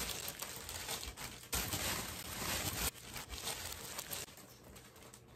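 Clear cellophane wrapping crinkling and rustling with sharp crackles as it is pulled off a gift basket, dying down about four seconds in.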